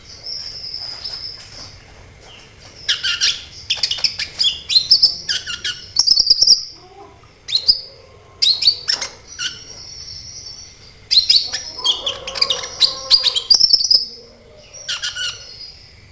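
A sunbird (the cage bird called 'kolibri ninja') singing high, fast chirps and trills in bursts, with short pauses between phrases.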